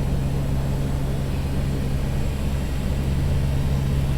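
Steady low drone of the Convair CV580's two Allison turboprop engines and propellers, heard inside the cockpit while the aircraft flies its approach, a constant hum with one strong low tone.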